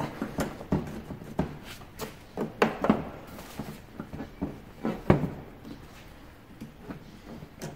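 Honda Gold Wing seat being pulled up and worked forward off its mounts: a run of irregular knocks and clunks, the loudest about five seconds in, with a brief rustling scrape between them.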